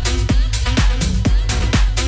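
Electronic dance music playing in a DJ mix: a steady kick drum about twice a second, with hi-hat strokes between the beats.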